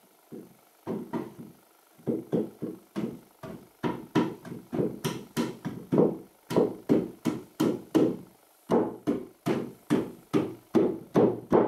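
Background music: a synthesizer pattern of short plucked notes, about three a second, sparse at first and steady from about two seconds in.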